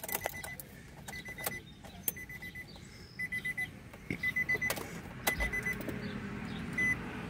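2011 Nissan Rogue's dashboard warning chime beeping at one high pitch in quick groups of short beeps, a group about every second, as the key goes into the ignition and is turned on. Several sharp clicks come in among the beeps.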